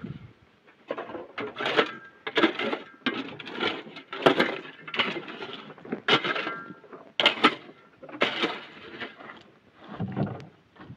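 Steel shovel digging and scraping into dry, stony dirt, about one stroke a second, each a short rough scrape.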